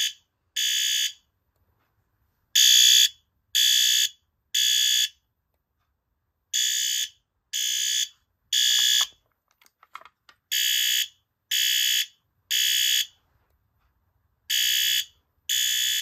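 Fire alarm horn sounding half-second blasts in groups of three with a longer pause between groups, the temporal-three evacuation pattern. It has been set off by a pulled manual pull station and runs on three 9-volt batteries.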